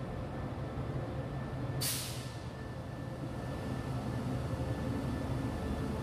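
SRT QSY-class diesel-electric locomotive running as it pulls a train into the platform, a steady low engine hum that grows slowly louder as it nears. A short burst of air hiss about two seconds in.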